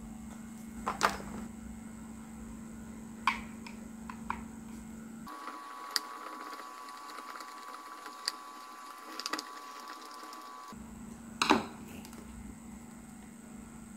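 Scattered light clicks and taps from small plastic model parts and a screwdriver being handled as a mesh grille is fitted to a miniature PVC engine model. Behind them is a steady low hum, which gives way to a steady higher tone from about five seconds in until near eleven seconds.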